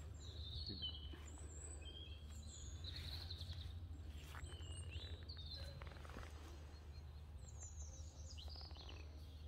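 Small birds chirping and trilling now and then, over a steady low rumble.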